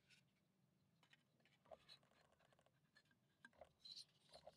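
Faint handling noises of a Ugears laser-cut plywood safe model: light scraping and small clicks of wooden parts being turned and fitted together, with a few small knocks in the second half.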